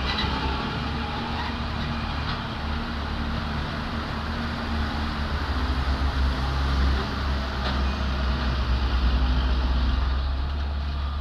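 Dump truck's diesel engine running steadily as the truck drives away along a narrow cutting: a continuous low rumble with a steady hum, a little louder in the second half.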